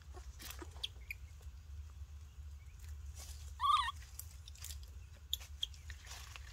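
A short, wavering squeak from a baby monkey about halfway through, over light rustling and crackling of dry leaves and dirt as it crawls, with a steady low rumble underneath.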